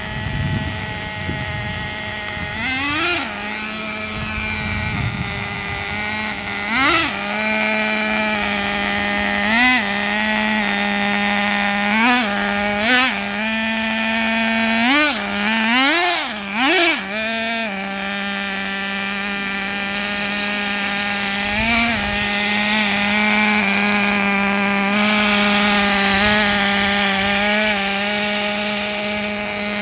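Traxxas TRX 3.3 nitro two-stroke glow engine running at idle, blipped about eight times in the first half with short revs that rise and fall in pitch, then running steadily.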